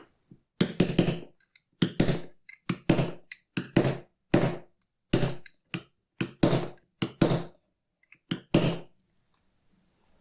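Hammer blows on metal, about fifteen sharp strikes at an uneven pace, often in quick pairs, each with a short ring: a belt buckle being straightened.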